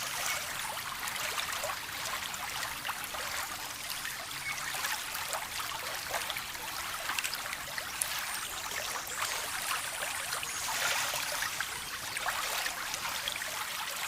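Water flowing and trickling steadily, with many small splashes, like a small stream running over stones; the sound is bright and hissy, with no deep rumble.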